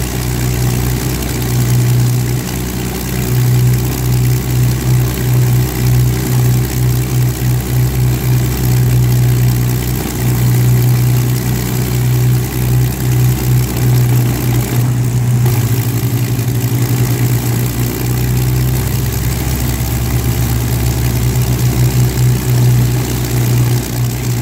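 The Avro Lancaster's four Rolls-Royce Merlin V12 piston engines running at idle on the ground, a loud steady low drone that throbs as the engines beat against each other.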